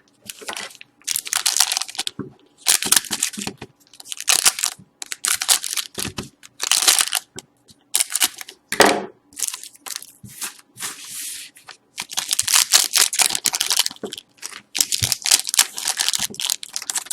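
Packs of 2012-13 Panini Certified hockey cards being torn open by hand, the wrappers crinkling and crackling in repeated short bursts, with a longer run of crackling in the last few seconds.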